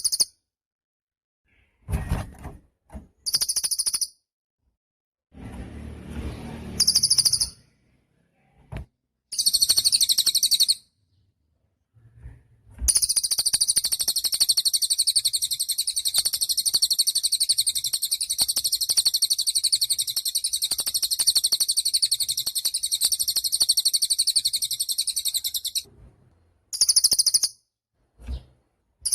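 Cililin songbird singing in very high, rapid trilled phrases: several short bursts, then one long unbroken run of song lasting over ten seconds, and a last short burst near the end. A few low thumps and a brief rumble come in the first few seconds.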